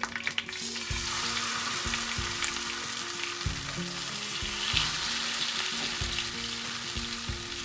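Masala-coated king fish steaks sizzling in hot oil on a flat tawa, louder from about a second in as the steaks go into the oil.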